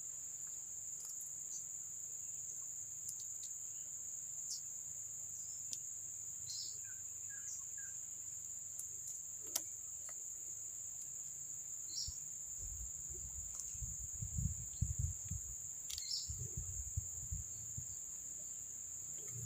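Steady high-pitched drone of insects, crickets or cicadas, with a few short chirps and clicks over it. From about halfway through, low rumbling thumps come and go for several seconds.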